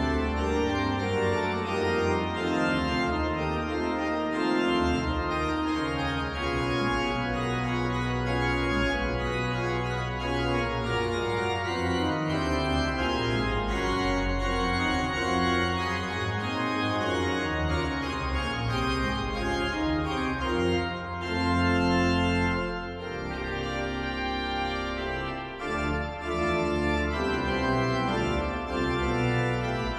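Pipe organ playing a fanfare in full, held chords that change every second or so, with deep sustained pedal notes in the bass.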